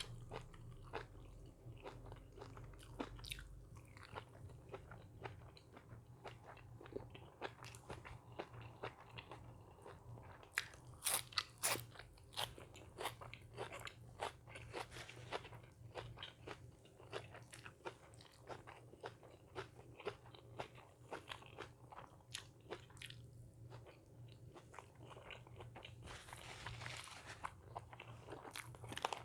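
Close-up eating: a person biting and chewing crunchy food, with many crisp crunches, densest about ten to twelve seconds in.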